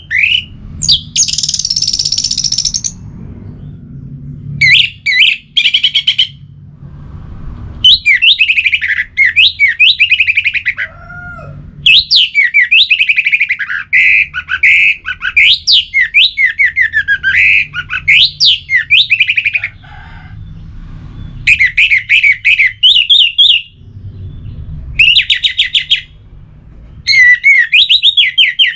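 Orange-headed thrush singing: loud phrases of quick, sweeping whistled notes and trills, delivered in bursts with short pauses between them. A brief hiss sounds about one to three seconds in, and a low rumble runs underneath.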